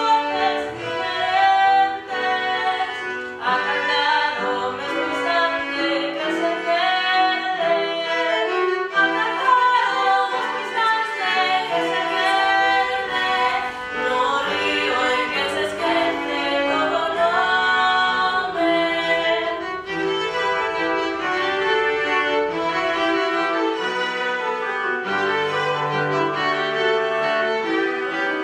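Classical-style music with bowed strings, violin to the fore, playing a slow melodic line.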